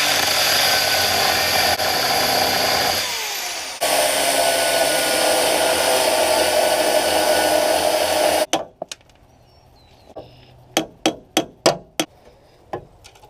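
Angle grinder with a cutoff disc cutting through the seized mounting hardware of old shock absorbers on a truck frame. It cuts for about three seconds, winds down briefly with a falling whine, starts again and cuts for about five more seconds, then stops. A string of sharp knocks follows.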